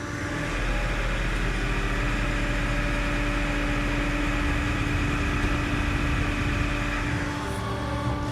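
Colchester T8 CNC lathe with its spindle running up at about 2,500 RPM: a steady high hiss over the machine's steady hum, which drops away about seven seconds in as the spindle comes off speed.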